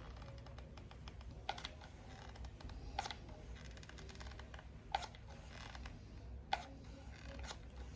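Faint, scattered small clicks and taps of hand work while glue is being applied, about five of them a second or two apart, over a low steady hum.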